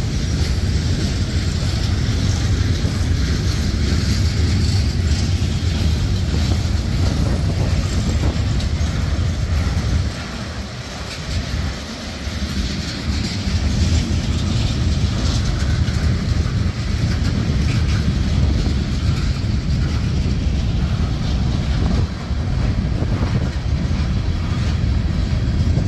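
Norfolk Southern manifest freight train rolling past close by: tank and covered hopper cars' wheels clattering over the rails in a steady low rumble, with a mid-train locomotive going by about halfway through.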